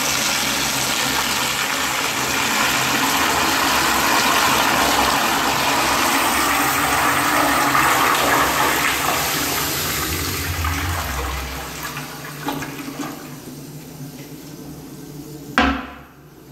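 Crane toilet flushing with strong force: water rushes and swirls loudly through the bowl, then dies down about ten to twelve seconds in with a low rumble, leaving a quieter steady hiss. A sharp knock sounds near the end.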